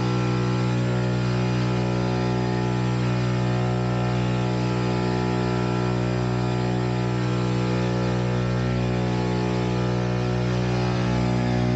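Archaeopteryx hang glider's electric pusher propeller running at a steady pitch, heard from inside the cockpit, with a steady hiss over it.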